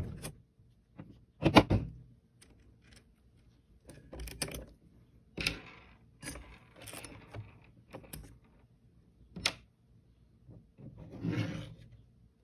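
Small metal tools and screws clicking, clinking and rattling against the RC buggy's shock tower and chassis as the parts are handled, in scattered short knocks with quiet gaps, the loudest about one and a half seconds in.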